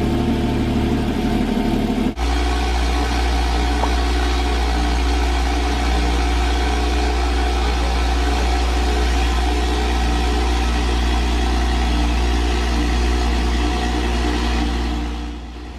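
Porsche Cayman Black Edition's flat-six engine idling steadily inside a garage, with a brief drop about two seconds in.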